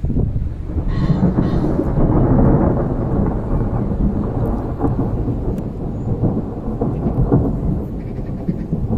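Thunder: it breaks suddenly, builds for about two seconds, then rolls on as a long, slowly fading rumble.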